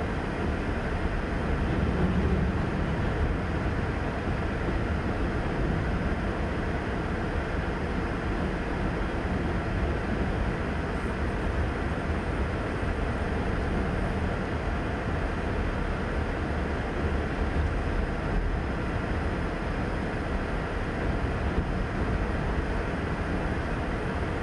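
Freight train of covered hopper cars rolling steadily past: a continuous rumble of steel wheels on rail, heard from inside a car.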